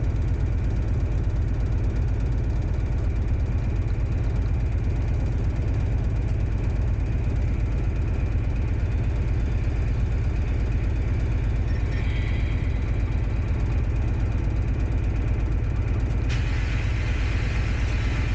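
Diesel engine of an HST power car running steadily, heard from inside the cab as the train rolls slowly. A steady hiss comes in suddenly near the end.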